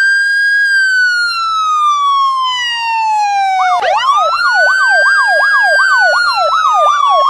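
Electronic emergency siren: a wail that rises and then slowly falls. About four seconds in, a second wail rises together with a fast yelp that sweeps up and down about two or three times a second.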